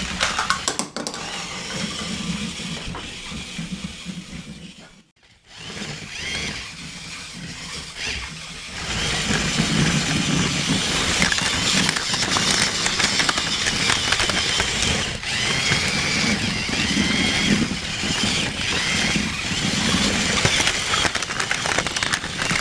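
Small electric motors and plastic gears of remote-control toy robots whirring and clattering as they move and fight. The sound drops out briefly about five seconds in, then from about nine seconds on becomes louder and steadier, with a wavering high whine, close to the microphone.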